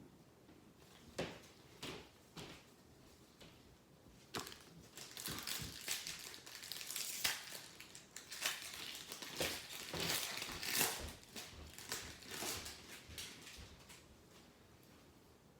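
Rustling and crinkling as trading cards and their packaging are handled: a few light clicks, then several seconds of dense crinkling that trails off near the end.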